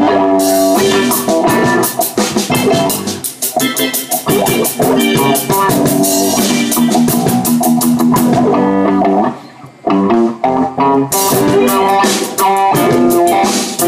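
A live rock band playing guitar, bass and drum kit, with a short sudden break about two-thirds of the way through before the band comes back in.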